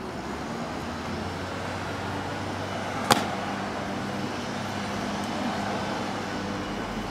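Honor guards' drill march on stone paving: one sharp clack about three seconds in, over a steady background hum of distant road traffic.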